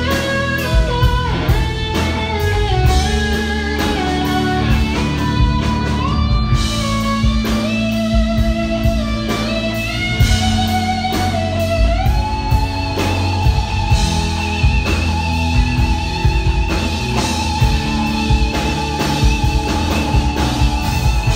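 Live rock band playing: a lead electric guitar solo with bending notes over drums and bass. About halfway through it settles into one long held note with vibrato.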